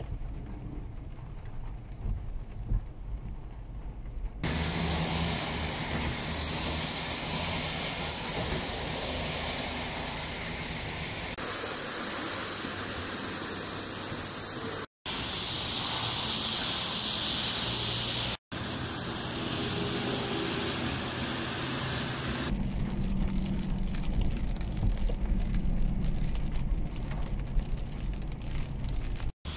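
Rain falling, a steady hiss with spattering onto the ground and into puddles and muddy water, in several clips joined by abrupt cuts. In the last few seconds, the low rumble of a car driving on a wet road, heard from inside the car.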